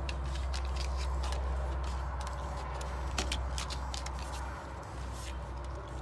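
Corgi gnawing and chewing on a hard chew held between its paws: a run of irregular wet clicks and crunches, over a steady low rumble.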